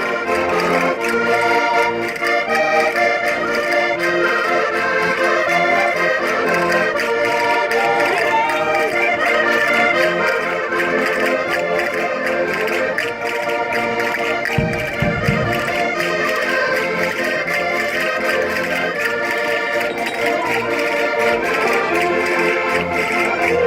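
Minho concertinas (diatonic button accordions) playing a folk dance tune, with notes changing in a steady rhythm. A brief low rumble about 15 seconds in.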